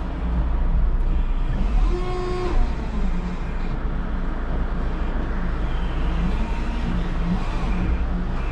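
Electric forklift at work: a steady low machine rumble, with a brief pitched whine about two seconds in.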